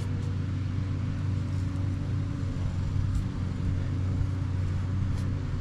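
Steady low rumble of motor vehicles: road traffic going by.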